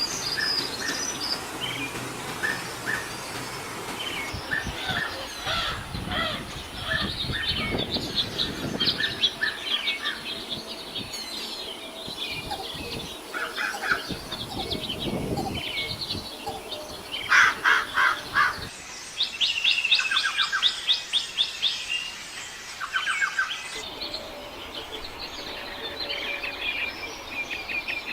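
Songbirds chirping and trilling: a busy string of short, quick calls and rapid trills from several birds, the background shifting abruptly a few times.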